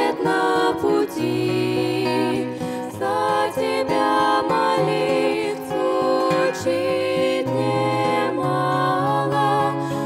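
Female vocal trio singing a slow Christian song in Russian, voices in harmony with vibrato, over an instrumental accompaniment of long held low notes.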